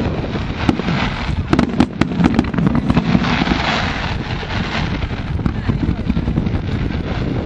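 Fireworks display: a rapid string of bangs and crackles through the first three seconds, then a longer rushing hiss, over a steady low rumble.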